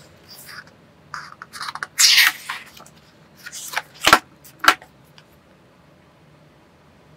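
Paper pages of a paperback colouring book being flipped and slid by hand: several short rustling swishes. About four seconds in, two sharp taps half a second apart as the book is closed and its cover handled.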